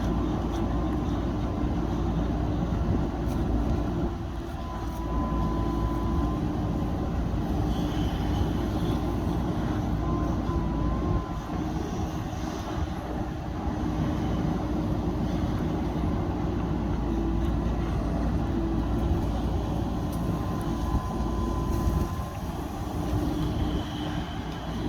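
JCB backhoe loader's diesel engine running steadily at work, a continuous low rumble with a faint thin whine that comes and goes a few times.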